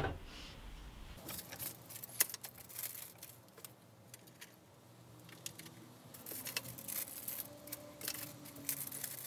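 Small metal assembly hardware (screws, bolts and fittings in plastic bags) being handled, giving scattered light metallic clinks and rattles in short irregular clusters.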